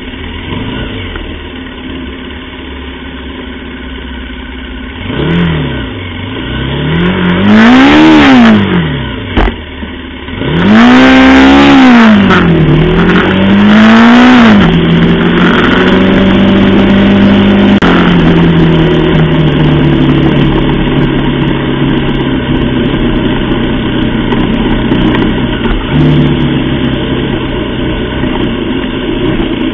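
Aprilia Tuono 125's single-cylinder four-stroke engine under way: the revs climb and drop three times in quick succession, as when accelerating up through the gears, with wind rush at each peak. It then holds a steady note and settles lower for the rest of the time.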